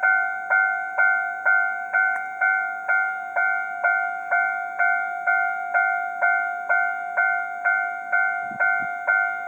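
Japanese railway level-crossing warning bell ringing, a steady two-tone "kan-kan" struck about twice a second, each strike fading before the next.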